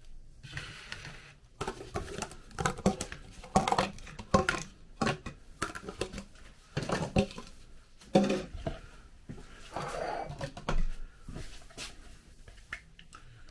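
Irregular knocks and clatter of plastic dessert molds and a jug on a kitchen counter as dissolved jelly is poured into the molds.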